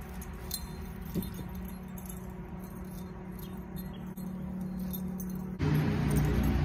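A steady low hum with a few faint light metallic clicks. About five and a half seconds in it turns suddenly louder, with a hiss over it.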